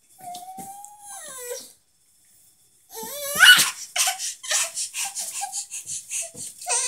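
A small child's wordless voice: a drawn-out cry that falls in pitch, then after a short pause a sharp rising squeal, followed by a run of short breathy sounds.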